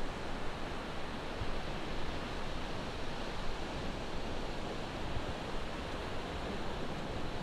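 Ocean surf on a beach, a steady rushing wash of breaking waves with no distinct crashes standing out.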